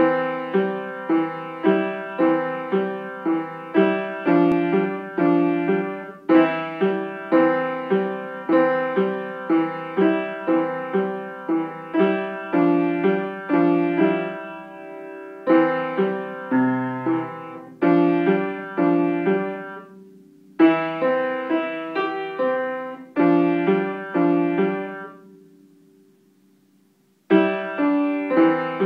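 Upright piano played at an unhurried, even pace: a simple melody over repeated lower notes, each note struck and left to ring. About 25 seconds in, a held note dies away into a short pause, and playing starts again near the end.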